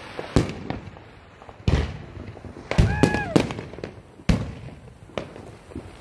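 Fireworks and firecrackers going off: a series of sharp bangs at irregular intervals, roughly one a second, the loudest around the middle.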